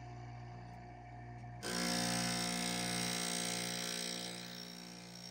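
Electric saw-blade sharpener's motor running with a steady hum; about one and a half seconds in, its grinding wheel bites into a carbide tooth of a circular saw blade with a harsh grinding sound that fades away near the end, leaving the hum.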